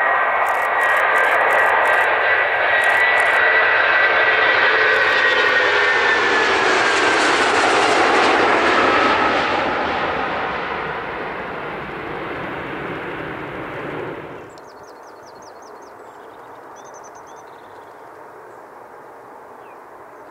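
A large jet airliner passing close by, its engines whining with steady high tones that slowly drop in pitch as it goes, loudest about eight seconds in and then fading. The sound cuts off suddenly about fourteen seconds in, leaving a quieter outdoor background with a few faint high chirps.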